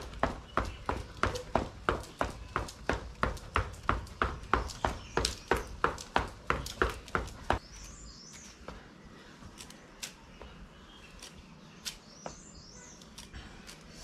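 Sneaker footfalls on a concrete floor during high knees: quick, even thuds, about three a second, stopping about seven and a half seconds in. Afterwards a few faint bird chirps.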